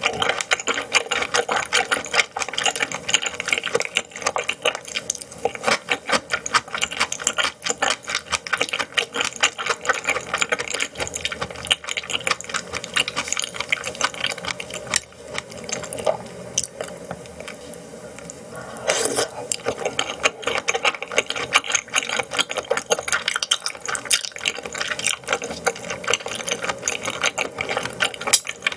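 Close-miked mouth sounds of chewing raw yellowtail sashimi: a dense run of rapid clicks and smacks, easing off briefly a little past halfway.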